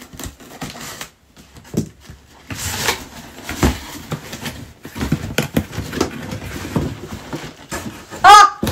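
A cardboard shipping box being cut open with scissors and its flaps pulled apart: scraping and rustling of cardboard with scattered knocks. Near the end, a short, loud excited vocal exclamation.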